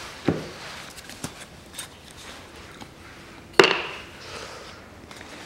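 Hands handling brake-caliper rebuild parts and a grease bottle on a plastic tool tray: a few light knocks and clicks, with one sharper knock about three and a half seconds in.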